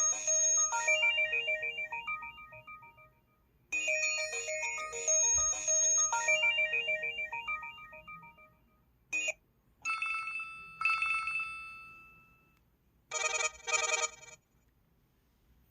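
LG-SH100 mobile phone ringtones playing one after another: a short chiming melody heard twice, then a brief blip, then a two-tone ring sounding twice, and near the end two quick bursts of a rapidly pulsing ring.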